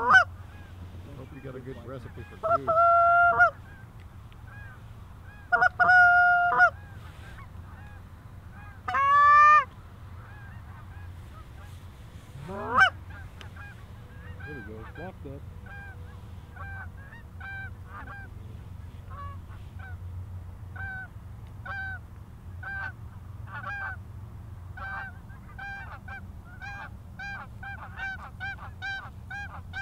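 Canada geese honking: a few loud, drawn-out calls in the first dozen seconds, then a flock's short honks coming thick and fast, more and more often toward the end.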